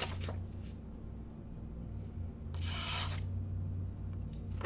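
A knife blade slicing through a sheet of paper to test a freshly sharpened edge: one short scratchy cut about two and a half seconds in.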